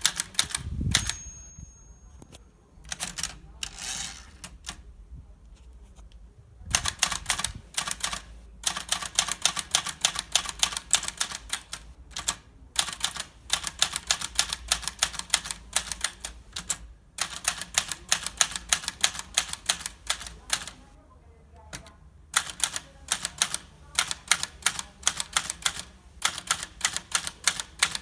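Olivetti Lettera 32 manual portable typewriter being typed on: fast runs of sharp key strikes in bursts, with short pauses between them. About a second in there is a thump with a brief high ring.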